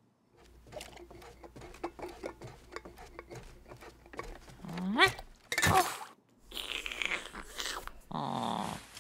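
Cartoon sound effects: a few seconds of small crunching clicks, then short wordless vocal noises from an animated character, one rising sharply in pitch about five seconds in and a loud burst just after.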